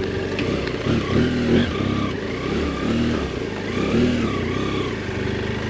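BMW F800GS parallel-twin engine riding along, its pitch rising and falling a few times as the throttle is opened and eased off.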